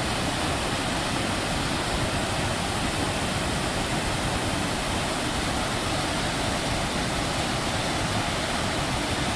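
Large waterfall pouring over a rock ledge into a pool: a steady, even rushing of falling water.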